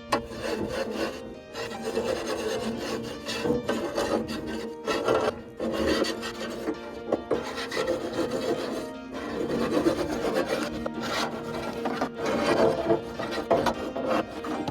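Repeated rough scraping strokes, a brush or scraper worked over metal, cleaning the ash and soot from an outdoor wood boiler's turbulators.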